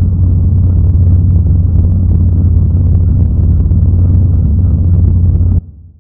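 Sci-fi UFO engine sound effect: a loud, steady low hum with a rumble over it, cutting off abruptly about five and a half seconds in.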